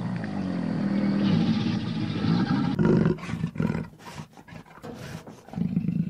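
A large wild animal's long, deep roar, followed by a quick series of short rough grunts and a louder call near the end.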